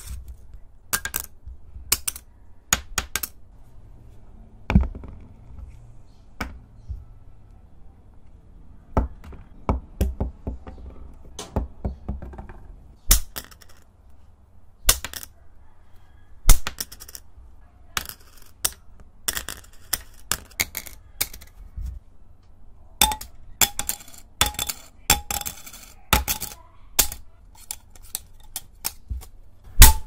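Tazos (collectible game discs) being handled, clicked against each other and dropped onto a wooden desk close to the microphone: a string of sharp clicks and clacks with softer handling rustle between them, coming thick and fast in the last few seconds.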